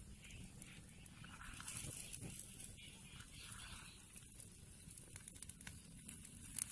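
Faint sizzling and crackling of fish grilling on a wire grate over a wood fire, with a few sharp crackles.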